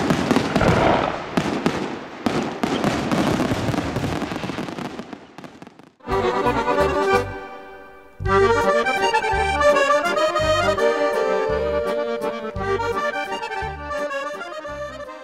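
Fireworks crackling and banging in dense rapid bursts, dying away over the first six seconds. Then music starts abruptly, with a steady bouncing bass beat under sustained chords.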